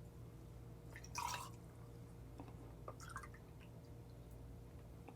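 Lemonade being poured out to measure three ounces: faint liquid dripping, with a short splash about a second in and a few light ticks after it.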